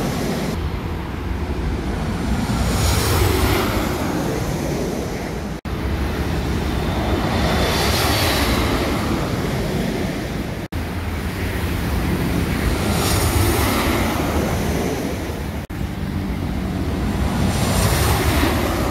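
Busy road traffic, mostly motorbikes and cars passing, with wind buffeting the microphone. The sound breaks off for an instant three times at edits. Near the end a Boeing 737 airliner on low final approach passes overhead, adding jet noise.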